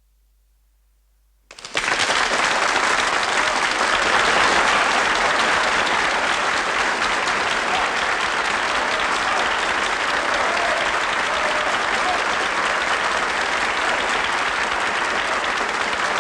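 Audience applauding, breaking out suddenly about a second and a half in and holding steady and loud.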